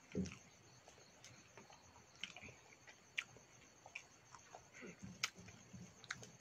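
Quiet sounds of eating with the fingers from a steel plate and bowl: fingers working rice and curry, chewing and lip smacks, with a few sharp clicks and a soft thump at the very start.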